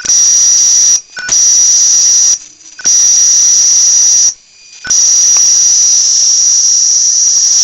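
Flyback transformer driven by a 555 circuit, arcing in four runs: a loud, steady high-pitched whine over a hiss, breaking off briefly between runs. This flyback sounds horrible.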